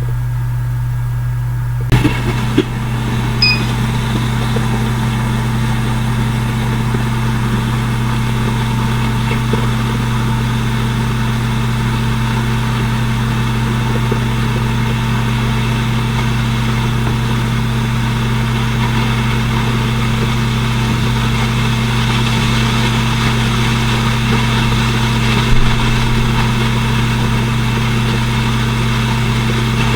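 Hot air rework station running for the CPU reballing: a steady fan hum with a hiss of blowing air. A click comes about two seconds in, after which a second, higher hum joins.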